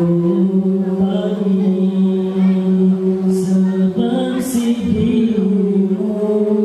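Male a cappella nasyid group of five voices singing into microphones, holding long chords in close harmony. The chord shifts about four seconds in.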